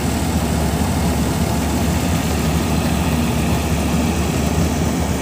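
Tractor-mounted combine harvester (Dasmesh 912 on a John Deere tractor) running steadily with a heavy engine drone while unloading grain through its spout.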